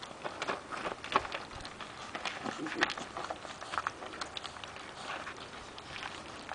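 Several 25-day-old Šarplaninac puppies lapping and smacking at a shared bowl: a quick, irregular run of small wet clicks, with a couple of louder ones about one and three seconds in.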